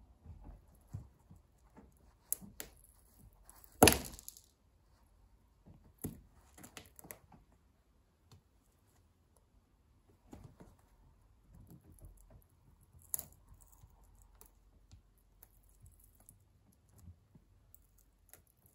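Stiletto heel of a leather boot stepping and grinding on the splintered pieces of a wooden pencil on a hard floor: scattered sharp cracks, crunches and heel clicks, with the loudest crack about four seconds in.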